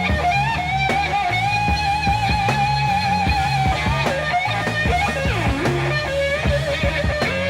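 Psychedelic rock band music: an electric guitar holds long, sustained notes with a wavering vibrato, swooping down and back up in pitch about five seconds in, over bass guitar and drums.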